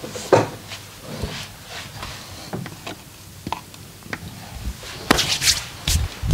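Hands working on skin during a massage: irregular sharp taps and slaps, with a louder cluster of hits about five seconds in.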